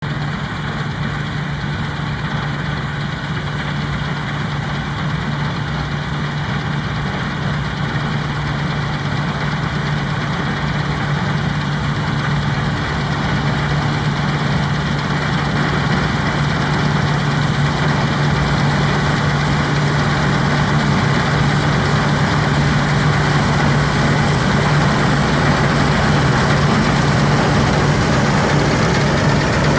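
Claas Dominator 86 combine harvester's diesel engine and machinery running steadily with a low hum, growing gradually louder.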